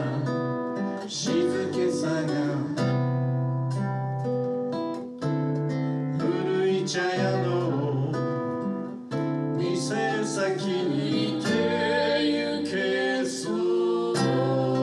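Acoustic guitar strummed to accompany live singing of a slow song.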